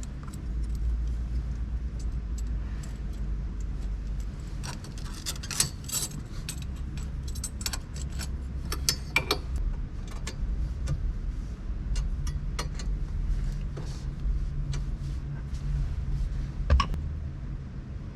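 Metal tool clicks and clinks of a ball-end Allen key and mounting hardware as a switch panel is bolted in place, in scattered clusters with a sharp click near the end, over a steady low rumble.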